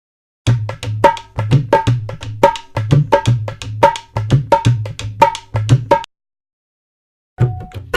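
Short percussion music clip: rhythmic drum strokes with ringing pitched notes over a low bass, about three strokes a second, cutting off abruptly about six seconds in; after a moment of silence another percussion clip starts near the end.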